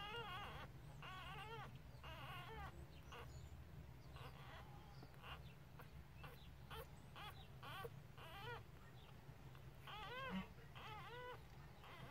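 Newborn puppies squeaking and whimpering while they nurse: a string of short, high, faint cries, one after another.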